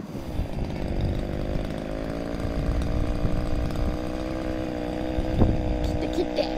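Chainsaw running steadily while cutting into an apple tree trunk, its engine note dipping slightly in the first half second and then holding even.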